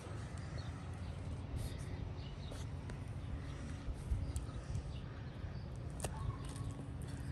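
Wind rumbling on the microphone as a low, unsteady noise, with a single sharp click about six seconds in.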